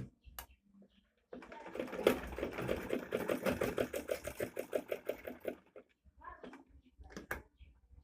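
Butterfly manual sewing machine stitching a buttonhole, running in an even rapid rhythm of about six stitches a second for roughly four seconds, then stopping, followed by a few light clicks.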